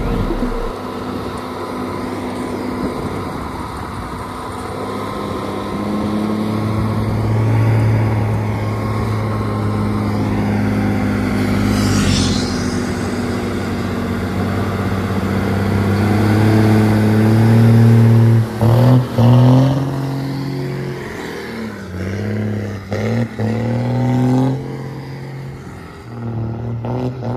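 Mercedes-Benz 1620 truck's diesel engine running under way, its note slowly climbing, then rising and dropping several times in the second half. A brief hiss sweeps up and down about twelve seconds in.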